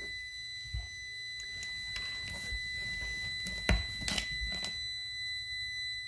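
Fluke 321 clamp meter's continuity beeper sounding a steady high beep while its test leads sit across a refrigerator compressor's common and start terminals: the beep shows the start winding has continuity. A few short handling knocks sound against it, the loudest about three and a half seconds in.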